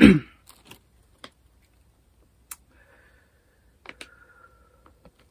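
A short low vocal sound from a woman, falling in pitch, right at the start, then a few faint scattered clicks.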